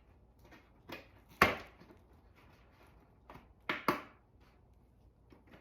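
A few sharp clicks and knocks from hands handling motorcycle parts and wiring during a turn-signal install. The loudest comes about a second and a half in, with two more close together near four seconds.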